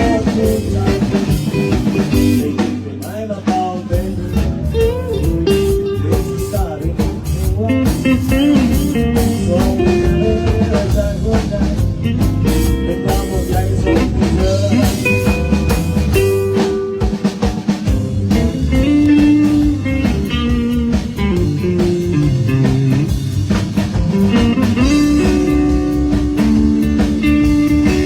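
Blues-rock band music: guitar playing held and bending, gliding notes over a drum kit.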